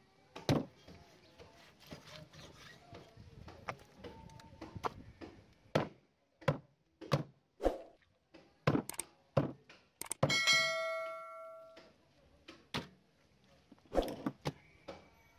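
Kitchen utensils and cookware knocking: a string of sharp thunks, most of them in the middle of the clip, and one metal clang a little after ten seconds in that rings on for about a second and a half before it fades.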